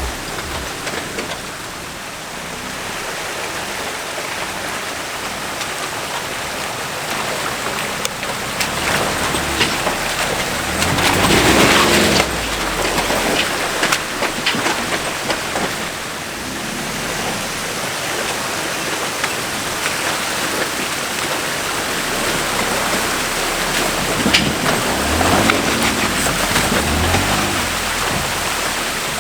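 2007 Jeep Wrangler JK's 3.8-litre V6 revving as its 35-inch tires churn through deep mud, over a constant spray of mud and water. The engine surges loudest about 11 seconds in and again near the end.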